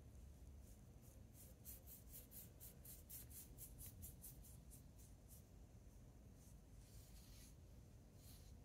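Faint strokes of a small paintbrush swishing ink across a paper swatch card: a quick run of about five brisk strokes a second for a few seconds, then a couple of slower, longer strokes near the end.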